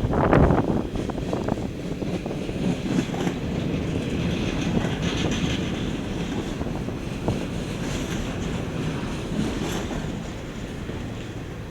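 Train rolling past on the rails: a steady rumble of wheels on track with scattered knocks, the loudest clatter about half a second in.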